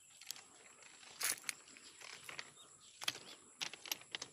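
Outdoor field sound: irregular sharp crackles and rustles, loudest about a second in and again around three seconds in, over a faint steady high-pitched whine.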